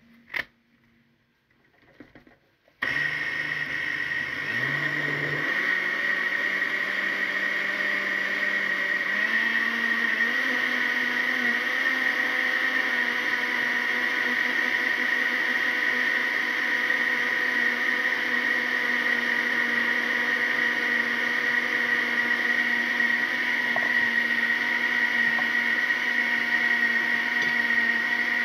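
Electric kitchen blender switched on about three seconds in after a couple of knocks, blending the liquid ingredients of a cake batter. Its motor pitch climbs over the first several seconds, then it runs steadily with a high whine.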